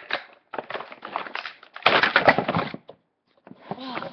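Clear plastic packaging crinkling and rustling in several bursts as it is handled and pulled off a boxed radio, loudest in the middle.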